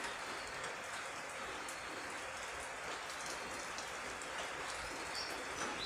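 Light rain falling steadily: an even hiss of drizzle with many small drop ticks.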